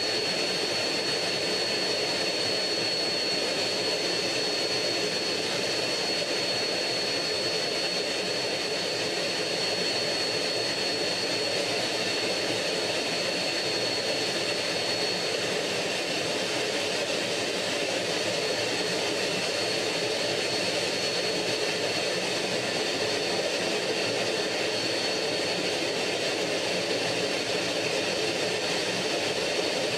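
MiG-15 jet fighter's centrifugal-flow turbojet running steadily in cruise flight, heard from inside the cockpit as an even rush of engine and air noise with a thin, steady high whine over it.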